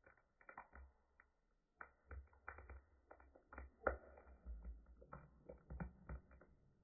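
Faint, irregular knocks and clicks of a ladle stirring and lifting semolina pudding cooking in milk in a pot, the loudest knock a little under four seconds in.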